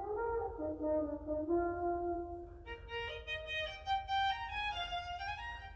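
A French horn plays a short melody of held notes; about two and a half seconds in, a violin takes over with a brighter, higher melody.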